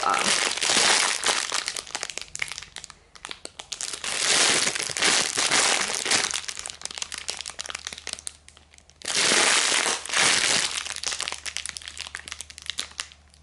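Clear plastic bag crinkling as a squishy toy is squeezed and handled inside its packaging, in three louder bouts with quieter rustling between.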